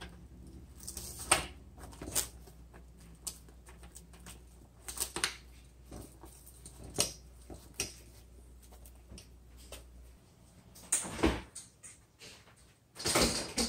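Plastic food wrap crinkling in small scattered crackles as it is stretched and pressed over a glass bowl. Near the end come two louder knocks as a bowl is put into a refrigerator.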